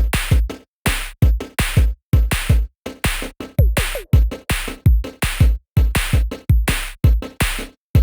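Electronic background music with a punchy drum-machine beat: heavy kicks and sharp hits, about two to three a second, with short gaps between them.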